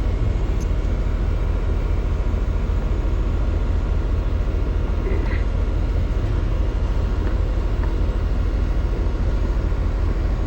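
Rheem Prestige air conditioner condensing unit running with a steady low hum and a rapid flutter; the technician takes it for a failing ECM condenser fan motor.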